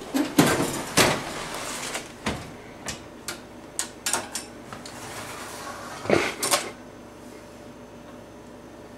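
Oven door of an old electric range being opened, then a series of metal clanks and scrapes as the oven rack and metal cake pan are handled. The loudest pair of clanks comes about six seconds in.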